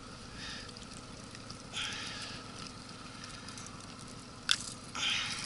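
Hands working a lure's treble hooks out of a fish's jaw: quiet rustling and scratching, with one sharp click about four and a half seconds in.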